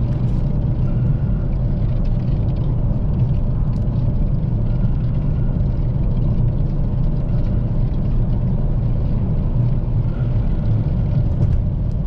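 Steady low road rumble heard inside a car's cabin at highway speed, from tyres and engine.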